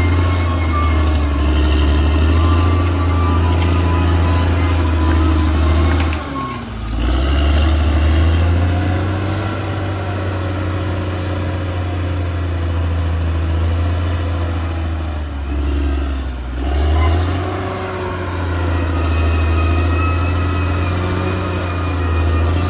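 Caterpillar D6R XL bulldozer's diesel engine running under load, with a steady whine above it. The engine note sags and recovers twice, about a quarter of the way in and again past the middle, as the engine lugs and picks back up.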